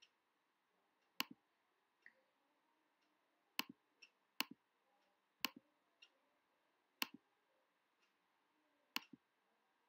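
Near silence broken by about six sharp clicks, spaced unevenly a second or two apart, each followed closely by a softer click.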